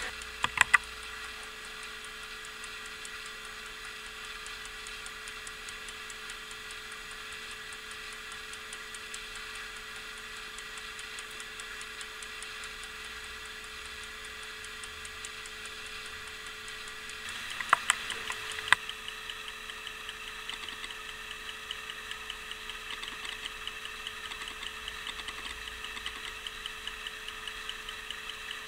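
Antique officer's travel clock (pendulette d'officier) ticking fast and evenly as its balance-wheel and hairspring escapement runs, showing that the movement works. A few sharp clicks come about two thirds of the way through, and after them the ticking is louder. A faint steady hum lies under it.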